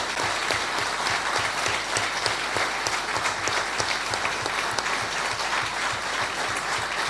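A large seated audience applauding, steady dense clapping.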